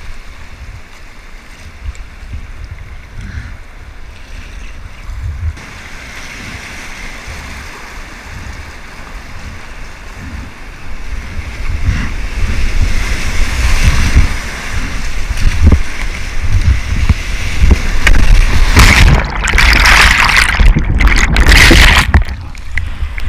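Whitewater rapid rushing and splashing around a kayak, with rumbling wind noise on the microphone. The water grows louder from about halfway and crashes loudest near the end as the kayak runs through a big breaking wave.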